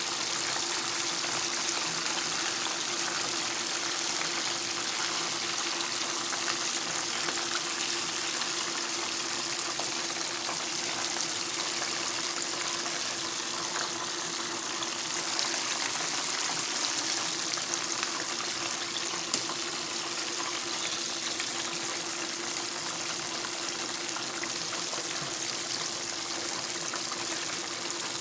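Chicken deep frying in hot oil: a steady bubbling sizzle, with a couple of light clicks and a faint steady hum underneath.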